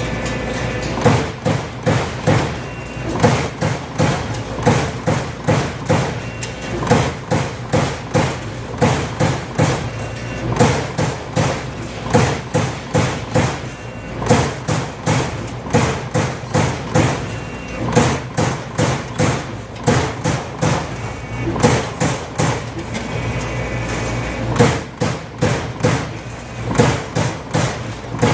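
Amada Aries 245 CNC turret punch press punching sheet metal: a fast, unbroken run of sharp punch strokes, a few per second, over a steady machine hum.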